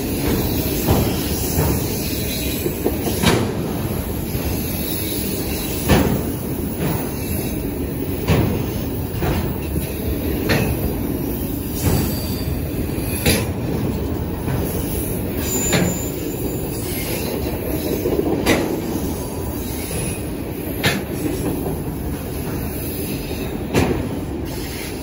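CSX freight train of autorack cars rolling past: a steady rumble of steel wheels on rail, with sharp clacks every second or two as wheels pass over the track.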